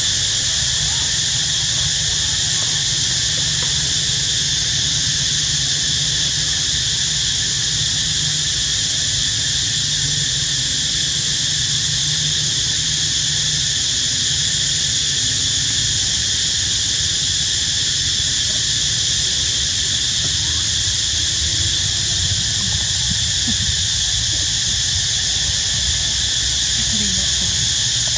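Steady high-pitched insect chorus, droning without a break in several shrill layers, over a low steady rumble.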